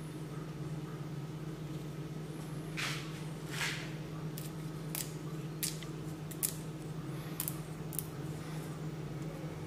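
Kaffir lime leaves torn and snapped by hand to strip out their stems: two longer rips about three seconds in, then a series of short crisp snaps. A steady low hum lies underneath.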